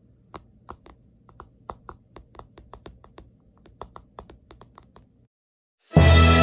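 Typing on a keyboard: irregular sharp key clicks, a few a second, for about five seconds. After a brief silence, loud background music starts near the end.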